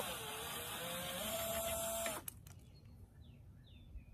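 Red cordless drill running as it drives in a license-plate screw; its motor whine rises in pitch and then stops about two seconds in. Faint bird chirps follow.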